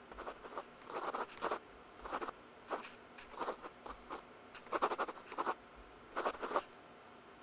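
Pen writing on notebook paper in short strokes that come in irregular groups with brief pauses between them.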